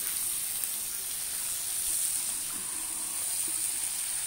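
Hilsa fish pieces frying in mustard oil in a pan, sizzling with a steady high hiss.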